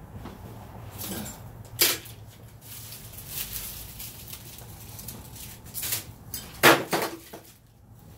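Scattered knocks and clanks as the heavy steel sawmill is shifted and pivoted on a dump trailer, with a sharp bang about two seconds in and the loudest bang near the end.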